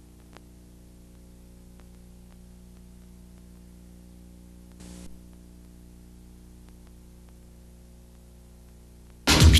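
Low steady electrical hum with a few faint ticks on a quiet recording. Loud music cuts in suddenly near the end.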